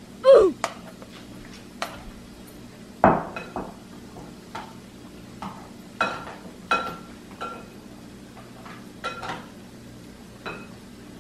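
Metal tongs clinking against a frying pan while turning battered quail eggs (kwek kwek) in oil: about a dozen light clinks at uneven intervals. Near the start, a short voice-like 'oof' sound effect with a steeply falling pitch is the loudest sound.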